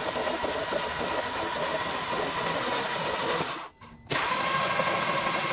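Starter motor spinning a 2.0 TSI four-cylinder with its spark plugs removed, a steady cranking with no firing, blowing leftover B12 solvent and carbon deposits out of the open plug holes. It breaks off briefly a little past the middle, then carries on.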